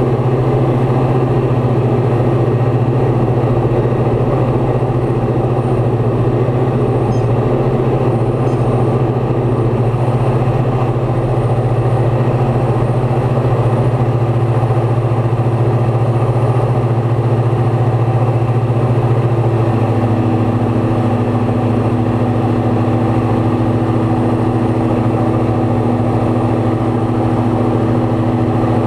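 Light aircraft's piston engine and propeller droning steadily in flight, with a slight change in engine tone about 20 seconds in.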